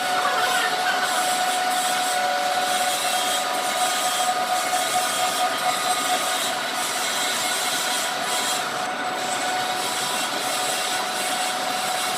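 A metal-cutting machine tool running steadily: an even cutting and scraping noise over a constant mid-pitched hum.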